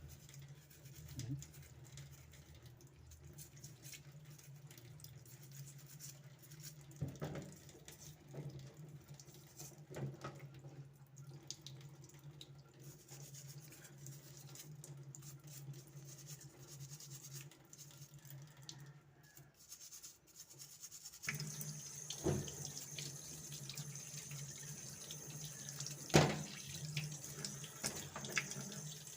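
Tap water running in a sink while G-Shock resin bezel and band parts are washed by hand, with scattered clicks and knocks of the parts being handled. The water flow gets stronger about two-thirds of the way through, and there is one sharp knock near the end.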